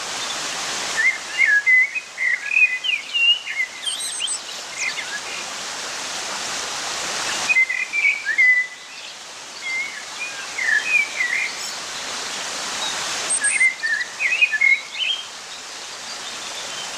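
A songbird singing three warbling phrases of quick chirps and whistles, over a steady background hiss.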